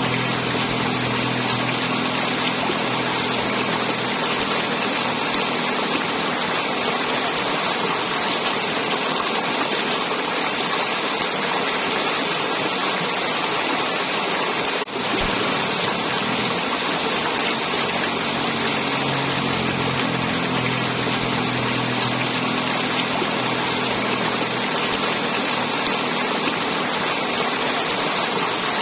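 River water flowing and gurgling in a steady rush, with a faint low hum underneath at times. There is a momentary dropout about halfway through.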